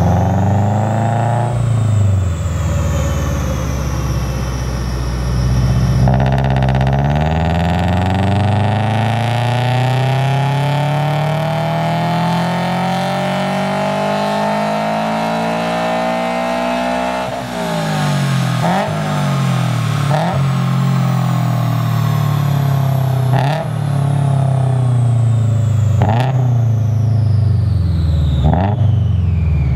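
Supercharged Subaru BRZ's flat-four boxer engine running on a chassis dyno in a long full-throttle pull, its pitch climbing steadily for about ten seconds. It then drops off suddenly and gives several short blips of revs.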